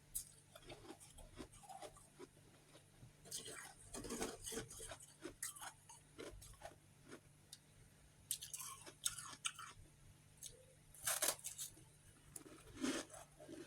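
Bites and chewing of refrozen freezer frost chunks: irregular clusters of crisp ice crunches, with the loudest bites around four, nine and eleven seconds in.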